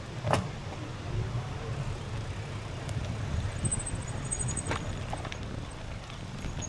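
A bicycle rolling along a trail, with a steady low rumble of tyres and wind on the microphone. A few sharp knocks come as the bike rattles over bumps, the loudest about a third of a second in. A faint high chirping sounds around the middle.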